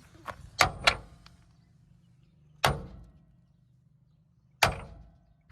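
Four sharp knocks: two in quick succession about half a second in, another near the middle and one near the end, over a faint low hum.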